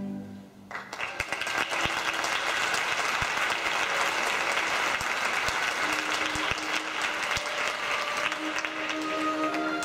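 The last of the orchestral string music dies away, and about a second in a theatre audience breaks into steady applause. Faint musical tones sound under the clapping near the end.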